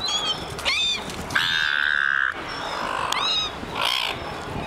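Silver gulls squawking repeatedly, short harsh high calls. A loud steady tone lasting about a second, starting about a second and a half in, is the loudest sound.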